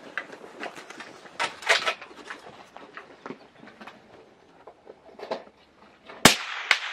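Light clicks and knocks of a shooter settling behind the rifle, then a single loud shot from a 6.5x55 Carl Gustaf rifle about six seconds in, followed half a second later by a second short sharp crack and the report echoing away.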